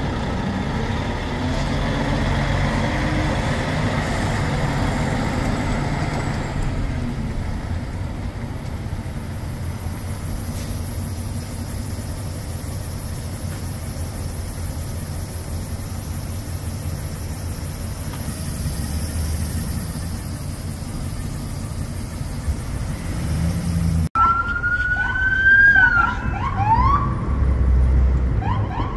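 Semi truck hauling a shipping-container trailer, its diesel engine a steady low rumble as it turns through an intersection. Near the end, police cars' sirens sound in short rising whoops, the loudest part.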